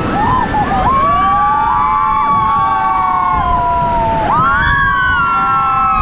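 Several rafters screaming and whooping together in long, held cries as an inflatable raft runs a whitewater rapid, over the rush of the river. A fresh wave of rising cries starts a little after four seconds in.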